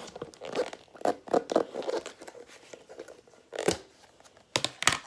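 Fluffy slime being stretched and squished by hand, making irregular crackles and small pops, with a few louder sharp pops in the second half.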